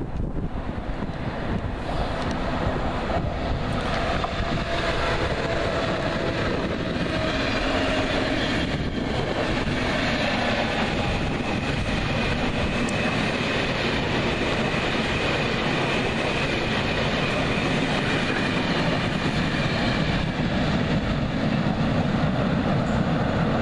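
Locomotive-hauled passenger train passing close by: the wheels of the electric locomotive and its long string of coaches running over the rails, with some clickety-clack.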